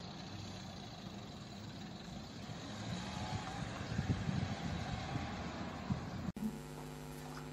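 Low, rumbling outdoor background noise that swells a little in the middle and cuts off abruptly about six seconds in. A faint, steady room hum follows.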